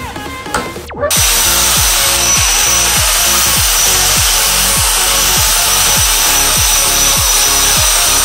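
A power tool cutting: a loud, steady hiss with a high whine that starts suddenly about a second in. Electronic background music with a steady beat plays underneath.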